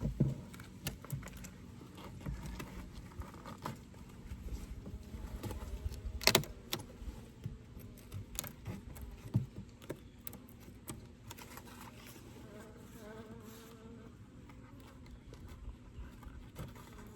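Honeybees buzzing around an open hive, with single bees droning past the microphone now and then. Scattered sharp clicks and knocks run through it, the loudest about six seconds in.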